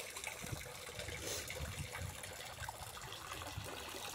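Water pouring and splashing from a plastic fish-transport bag into a pond as the excess water is tipped out.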